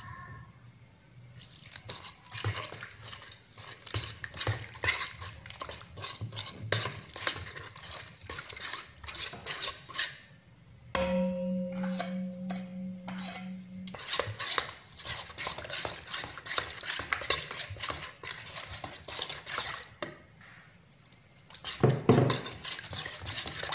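Metal spoon scraping and clinking against a stainless steel bowl, with irregular quick strokes, while stirring seasoned flour and ice water into a thin batter. A steady low hum lasts about three seconds near the middle.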